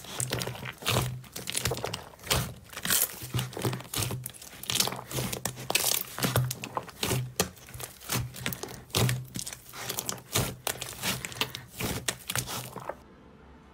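Hands squishing, pressing and stretching a bowl of fluffy slime: dense, irregular crackling and popping, with sticky tearing sounds as it pulls apart. It stops abruptly near the end.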